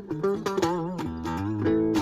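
Ibanez AXS42 guitar played: a quick single-note melodic run, several notes a second, with vibrato wavering the pitch of some notes.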